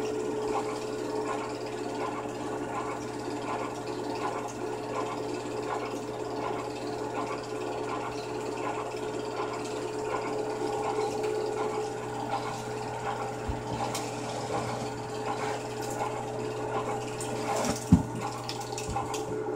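Home-movie film projector running with a steady mechanical whirr and clatter over a low hum. A single sharp knock near the end.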